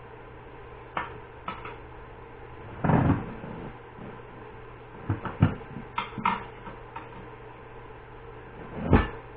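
A steel tire iron clanking and knocking against a tractor wheel rim, in irregular strikes, as the tire bead is levered back onto the rim a bite at a time. A steady low hum runs underneath.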